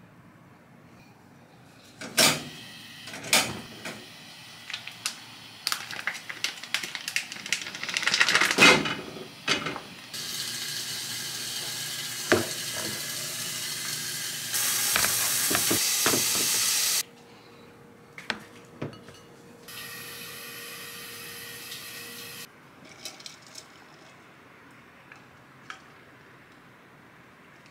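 Crinkles and clicks of a plastic meat pack being handled, then Korean hanwoo beef top blade sizzling in a hot pan in short stretches that start and stop suddenly. A few light clinks of dishes come near the end.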